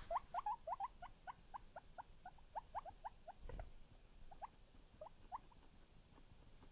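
Guinea pig making soft little noises: a quick series of short, slightly rising squeaks, about four or five a second at first, thinning out and stopping before the end. A faint bump about halfway through.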